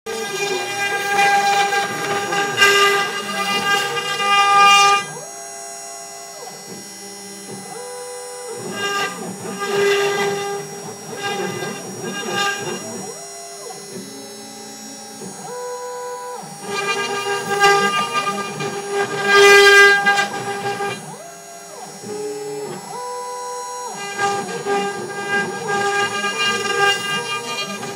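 CNC router spindle running with a steady high whine while a conical carving bit cuts into a weathered wooden beam. The sound grows louder and noisier in stretches as the bit cuts, and in the quieter gaps the machine's motors whine at tones that step up and down in pitch as it moves.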